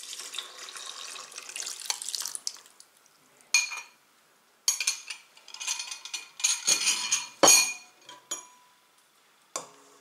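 Honey water poured from a glass bowl into a stainless-steel mixing bowl for about two and a half seconds, then a metal spoon scraping and clinking against the glass bowl, with a sharp knock about seven and a half seconds in.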